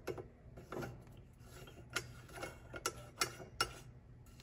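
Kinetic Reactor faucet attachment's metal casing being screwed by hand onto a stainless steel faucet spout: a series of small, quiet clicks and ticks at irregular spacing, sharper and closer together in the second half.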